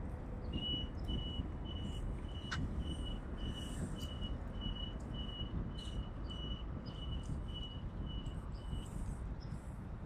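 A high chirp on one pitch, repeating evenly about twice a second, over a steady low outdoor rumble; one sharp click about two and a half seconds in.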